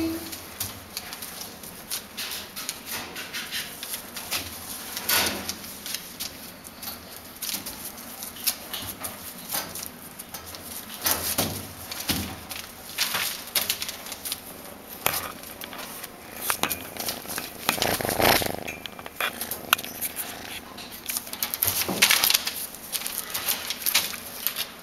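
Irregular rustling and crackling of newspaper lining a cage floor as a kitten shifts about on it while being petted, with a few louder scuffs scattered through.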